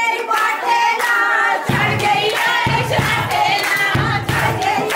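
Voices singing together over rhythmic hand-clapping, with a deep drumbeat coming in under them a little under two seconds in.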